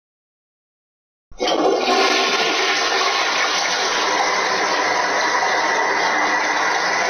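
Shower running: water spraying in a steady hiss that starts suddenly about a second in.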